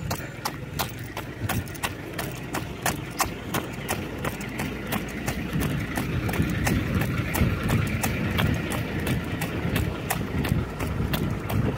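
Running footsteps on asphalt: shoes striking the road in a steady jogging rhythm, about three footfalls a second, over a low rumble.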